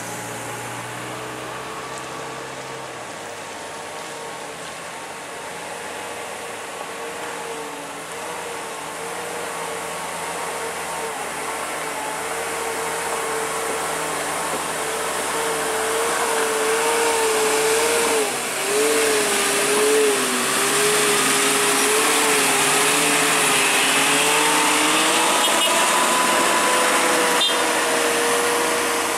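Loaded diesel cargo truck labouring up a steep grade, its engine running steadily under heavy load and growing louder as it approaches. The engine note dips briefly about two-thirds of the way through, then carries on.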